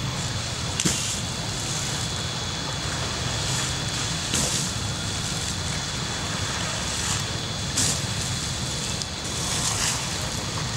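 Water splashing in a shallow river, with a few brief splashes a few seconds apart over a steady rushing noise.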